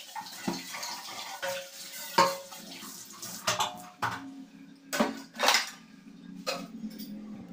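Stainless steel pots, bowls and plates clanking and ringing against each other as they are rinsed under a running kitchen tap and stacked, with about six sharp clanks, the loudest about two seconds in.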